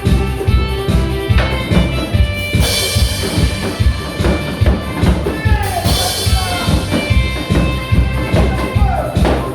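Music with a steady drum-kit beat of about three strokes a second, with cymbal crashes about three and six seconds in.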